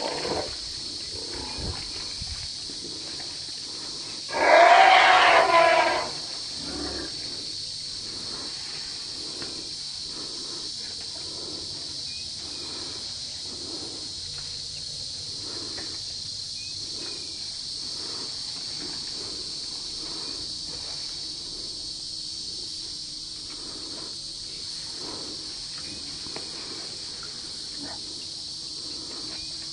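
An African elephant gives one loud call of about a second and a half, about four seconds in, over a steady high insect drone.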